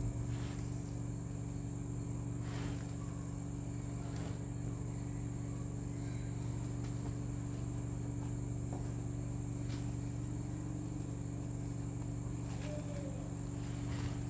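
Steady low electrical-sounding hum with a thin, constant high whine above it, and a few faint soft rustles of fabric being handled and folded.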